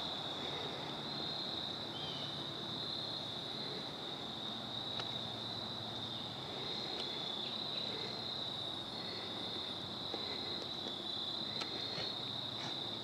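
Field crickets trilling in a steady, unbroken high-pitched chorus, with a few faint scattered ticks over it.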